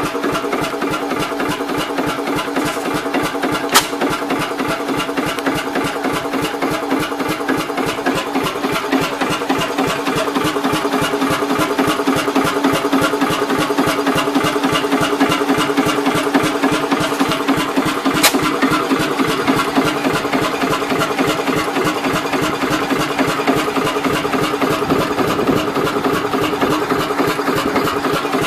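Old single-cylinder Deutz stationary diesel engine running steadily with an even, rapid beat, its belt pulley turning without load. Two sharp ticks stand out, once about 4 seconds in and again about 18 seconds in.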